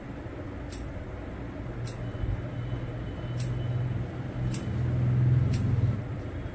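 Barber's scissors snipping beard and sideburn hair, about five short crisp snips roughly a second apart. A low steady hum runs underneath and grows louder toward the end.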